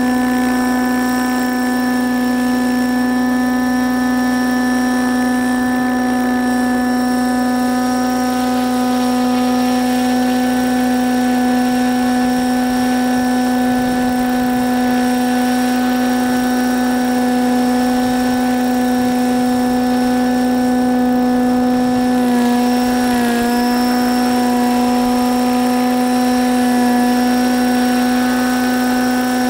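Thunder Tiger Raptor 90 SE radio-controlled helicopter, in an Agusta A109 scale body, hovering: its O.S. nitro engine and rotor head hold a steady, even hum. About 23 seconds in the pitch dips and wavers briefly, then settles again.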